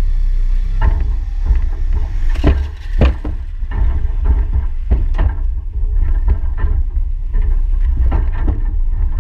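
Loose wooden bridge planks knocking and clattering under footsteps and a scooter being pushed across, over a heavy, steady low rumble.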